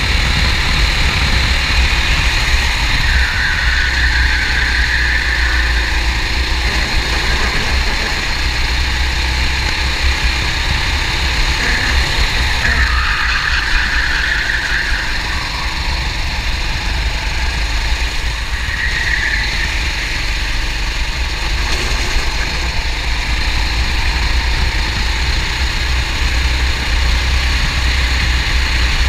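Racing kart engine running at speed, heard from on board the kart, steady throughout. A brighter hiss swells up several times over it.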